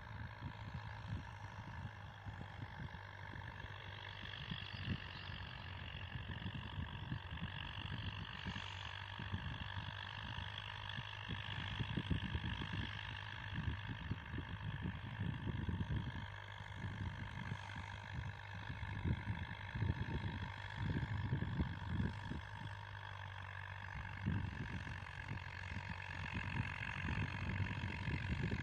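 Steyr 8073 tractor engine running steadily under load while pulling a plow through a field, heard from a distance, with gusts of wind buffeting the microphone.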